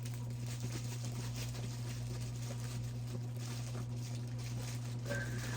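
A steady low hum with faint rustling and small ticks, like snack packets and machine parts being handled.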